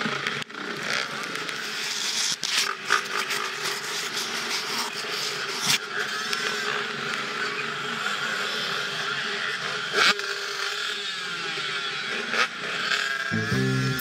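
Dirt bike engine running on the move, its pitch rising and falling a little at times, over a dense rush of noise, with a few sharp knocks here and there. Music comes in just before the end.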